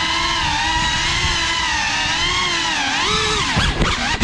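FPV quadcopter's motors and propellers whining steadily. The pitch shifts with the throttle and swoops down and back up in the last second.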